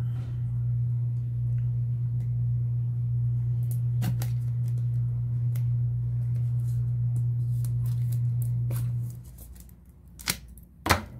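Small scissors snipping at the plastic wrap of a tablet box: a few sharp snips, the loudest two close together near the end. Under them a steady low hum runs until it stops about nine seconds in.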